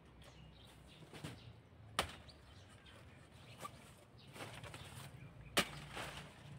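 Machete chopping through the stalk of a banana bunch: two sharp chops about three and a half seconds apart, the second the loudest, with a few fainter knocks between.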